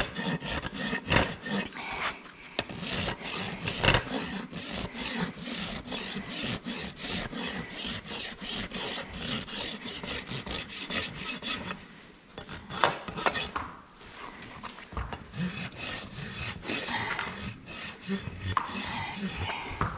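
Hoof rasp filing the edge of a horse's hoof wall in repeated strokes, rounding off and evening the toe. The strokes pause briefly about twelve seconds in, then start again.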